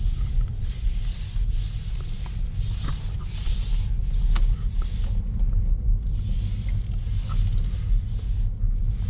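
Inside a Ford Focus creeping forward and turning: steady low rumble of the engine and tyres at crawling speed. Patches of soft hiss come and go as hands slide round the steering wheel, with a few light clicks.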